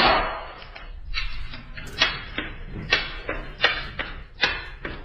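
A steady run of sharp taps or knocks, about one every 0.8 seconds.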